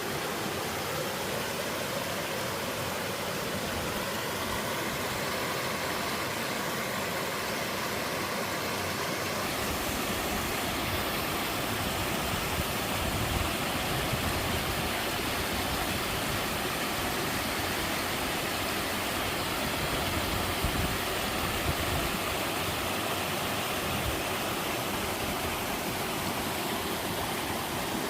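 Mountain-stream waterfall, water falling and rushing as a steady, even noise; from about nine seconds in a deeper rumble fills in underneath.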